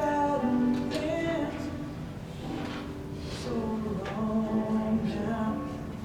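Recorded music playing: a song with a voice singing long held notes.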